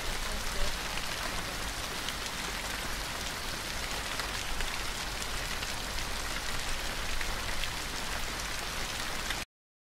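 Steady rain: an even hiss with faint scattered drop clicks that cuts off suddenly near the end.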